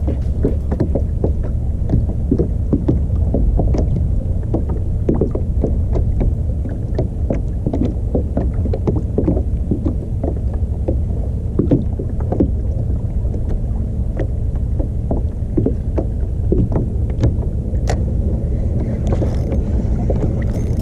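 Water slapping and splashing irregularly against a small fishing kayak's hull over a steady low rumble.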